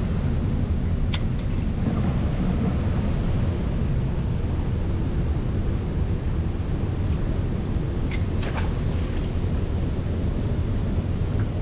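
A large waterfall and its churning water, a steady rush heavy in the low end, with two brief clicks, about a second in and about eight seconds in.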